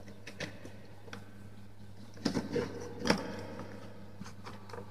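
Hands handling wires and plastic electrical fittings on a plywood board: scattered clicks and knocks, the loudest about two and three seconds in, over a steady low hum.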